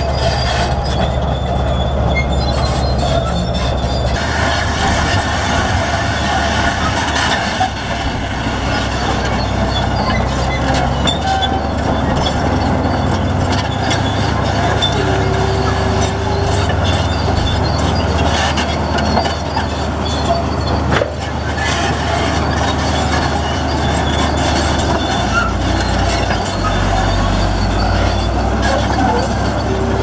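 Komatsu D65P crawler bulldozer's diesel engine running under load as it pushes earth and rock, its note shifting a few times, with short metallic squeals and clatter from its steel tracks.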